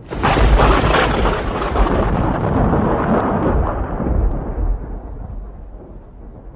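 A thunderclap: a sudden sharp crack just after the start, followed by a long low rumble that slowly fades away.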